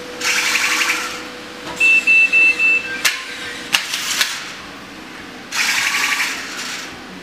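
Small electric wheel motors of a two-wheeled remote-control stunt bounce car whirring in two short spurts as it drives over a tiled floor. A run of four short high beeps comes about two seconds in, and a few sharp knocks follow around three to four seconds in.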